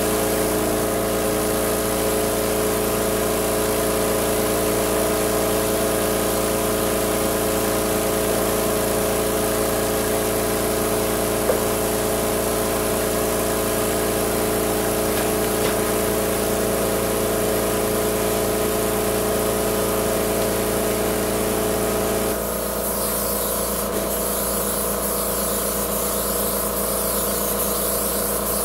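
Titan AirCoat air-assisted airless sprayer running with a steady motor hum. About three-quarters of the way through, the hum changes and the spray gun's hiss of atomised paint begins.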